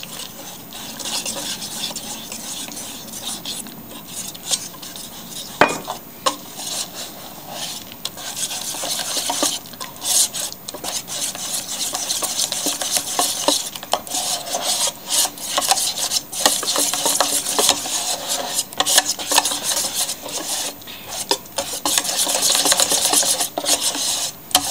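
Wire whisk beating thick tempura batter in a stainless steel pan: rapid wet stirring with the wires scraping and clicking against the metal. A single sharp knock about six seconds in.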